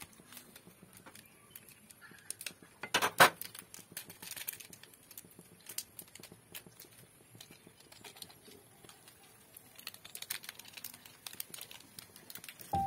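Quiet cooking sounds: scattered light clicks and scrapes of a steel ladle in a metal wok of Maggi noodles, with a couple of louder sharp knocks about three seconds in.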